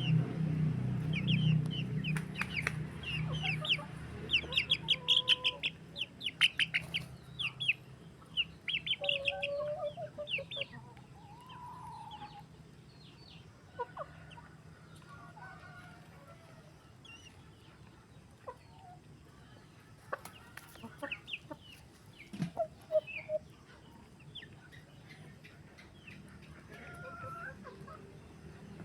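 Chickens clucking and calling, with a busy run of short, high calls in the first ten seconds, then fewer and fainter clucks.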